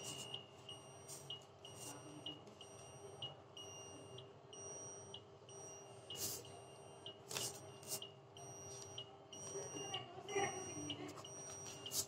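Short high electronic beeps repeating about twice a second from a cobalt-60 teletherapy unit's control console, the audible signal that the treatment beam is on, over a steady machine hum; a few sharp clicks come through in the middle and near the end.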